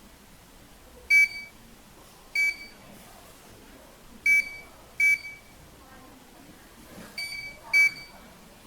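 IPBS001 wireless 1D barcode scanner beeping on scans: six short high-pitched beeps at irregular intervals, the confirmation tone for each barcode read.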